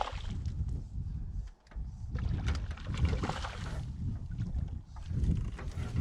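Water sloshing and knocking against the hull of a drifting fishing boat, with wind rumbling on the microphone.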